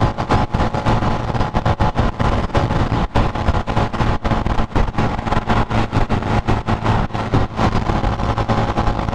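Wind buffeting an action camera's microphone at riding speed, with rapid irregular thumps over the steady hum of a Honda motorcycle's engine running on a bumpy road.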